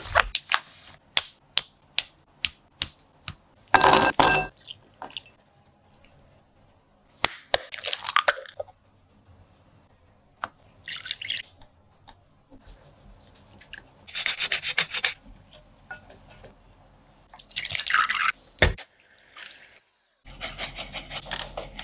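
A series of sharp kitchen taps and clicks, then several short noisy bursts of food handling. Near the end an electric hand mixer whirs steadily, its wire beaters whisking egg whites in a glass bowl.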